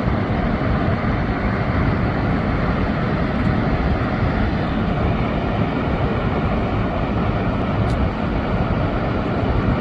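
Waterfall with a steady rushing roar, deepest in the low end.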